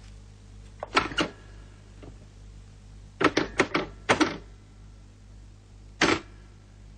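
Old desk telephone being handled: sharp plastic-and-metal clacks and clicks from the handset and cradle. There is a pair of clacks about a second in, a quick run of six or so clicks around three to four seconds in, and one more clack about six seconds in.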